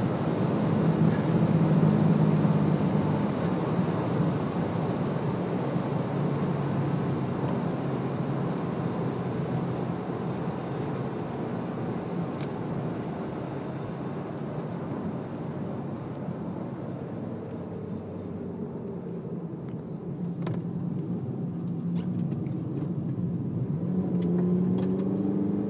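Honda Civic heard from inside the cabin while slowing down from over 80 mph: road and wind noise with the engine running underneath, slowly getting quieter as speed drops. Near the end the engine note rises a little.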